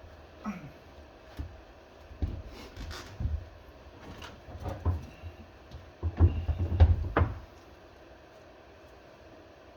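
Handling noise: scattered knocks, bumps and clicks of objects being moved and set down, with a dense run of louder bumps about six seconds in, then only faint room tone.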